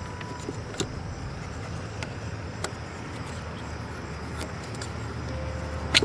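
A few light clicks as plastic spark plug wire boots are handled at an engine's ignition coil pack, the sharpest near the end, over a steady low rumble.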